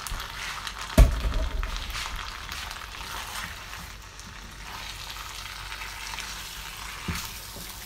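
Shrimp and pasta in a creamy sauce sizzling steadily in a frying pan as they are stirred with a silicone spatula, with a sharp knock about a second in.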